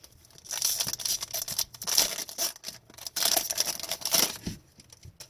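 Hockey card packs and cards being handled: wrappers crinkling and cards rustling in two rapid, crackly spells, the second ending about four and a half seconds in.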